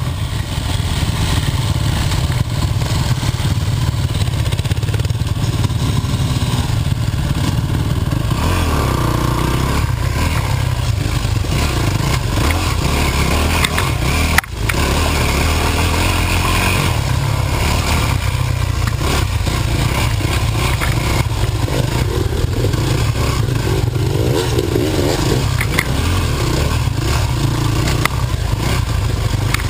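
Dirt bike engine running under way on a rough trail, recorded on board, with the throttle rising and falling and a heavy low rumble. The sound cuts out briefly about halfway.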